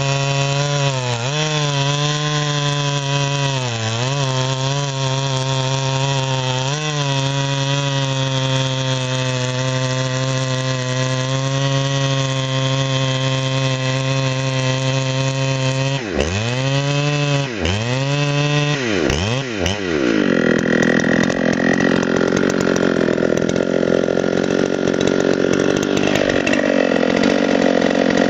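Ported Husqvarna 394XP two-stroke chainsaw cutting through a dry, seasoned lodgepole pine log at high revs, its engine note dipping briefly now and then as the chain bites. About sixteen seconds in, the revs drop sharply and recover several times as the cut finishes. From about twenty seconds the saw runs slower with a rougher, lower sound, as it does when it idles after being set down on the log.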